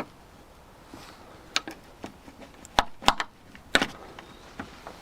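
A handful of sharp, separate clicks and knocks, the loudest a pair about three seconds in and another just before four seconds: a Land Rover Discovery 2's outside door handle and latch parts being worked loose from the door.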